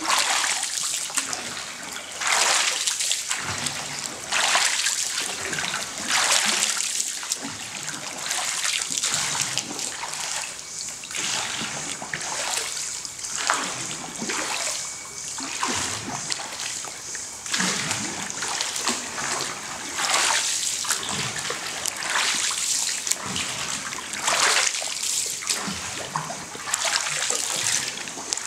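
Water splashing and sloshing as a bamboo pole is pushed into the river and drawn back, a stroke about every two seconds.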